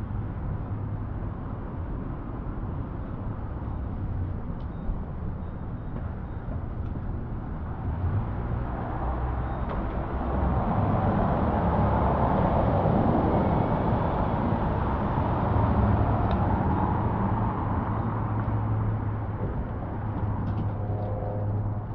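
City street traffic, with a vehicle passing close: its engine and tyre noise swell about a third of the way in, are loudest around the middle with a steady low hum, and slowly fade near the end.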